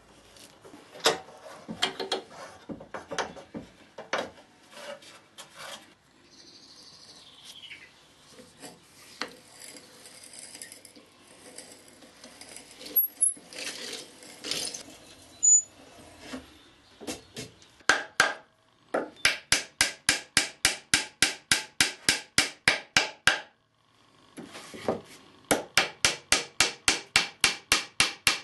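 Hand woodworking: scattered clicks and scraping, and a drill bit boring into wood around the middle. In the last third a ball-peen hammer drives oak dowels into wood with steady blows about three a second, in two runs with a short pause between.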